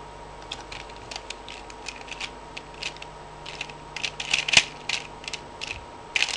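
Plastic Pyraminx puzzle being turned fast by hand in a speedsolve: rapid, irregular clicks and clacks of the pieces, thickest about four and a half seconds in and quickening near the end. The puzzle is very loose.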